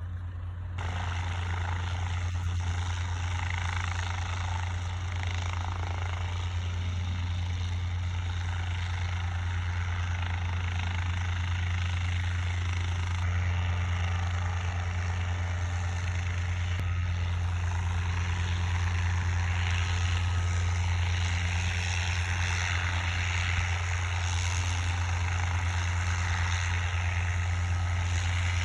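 Propeller airplane engine running steadily: a constant low drone with a hissy upper layer, growing a little louder in the last third.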